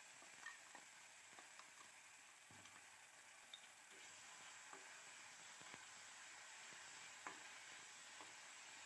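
Faint sizzling of a blended onion-tomato and spice paste frying in oil in a stainless steel kadai, with scattered scrapes and taps of a spoon stirring it; one slightly louder tap about seven seconds in.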